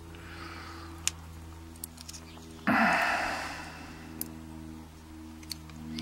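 A few small, sharp clicks from a brass euro lock cylinder and tools being handled as its plug is worked out. A loud, sudden rushing noise a little under three seconds in fades over about a second. A steady low hum runs underneath.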